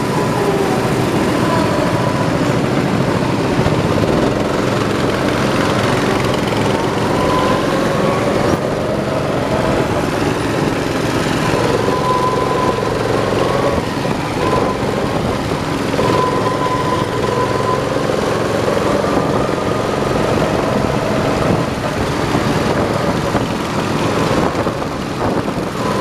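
Go-kart engine running hard as the kart is driven around the track, heard close from the driver's seat, its pitch rising and falling with the throttle through the corners.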